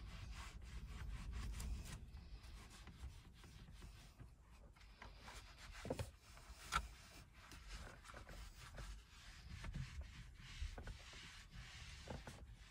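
Bamboo-fibre scrub pad rubbing along a steering wheel rim with all-purpose cleaner, working the greasy shine off the wheel. Faint scrubbing, with a few soft clicks and one sharper click a little under seven seconds in.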